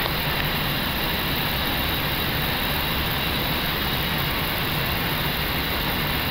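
Steady flight-deck noise of an Airbus A321 in descent: airflow and engine hum with a faint low drone, unchanging throughout.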